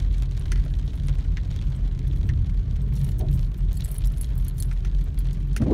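Inside a car driving on a wet road: a steady low rumble of engine and tyres, with scattered light ticks of rain hitting the car and a short sound at the very end.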